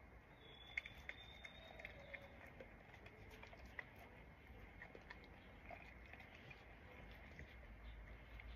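Near silence, with a few faint scattered clicks and ticks and a low background rumble.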